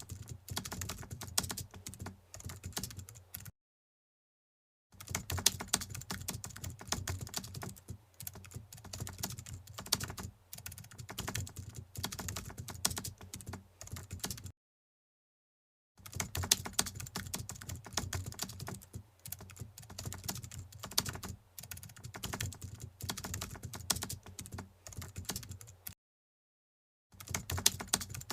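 Computer keyboard typing: quick runs of key clicks, broken three times by a second or so of dead silence.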